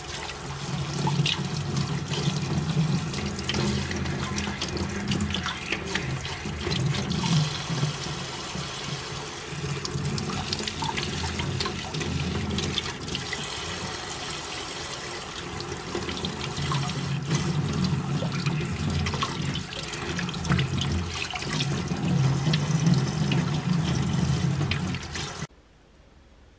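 Kitchen tap running into a stainless steel bowl in the sink while hands swish and rinse butterbur buds in the water. The flow cuts off suddenly near the end as the tap is turned off.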